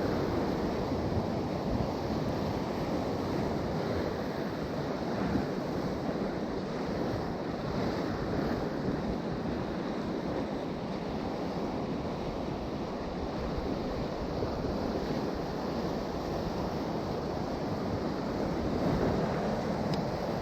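Sea surf washing steadily against a rocky shore in rough water, with wind buffeting the microphone.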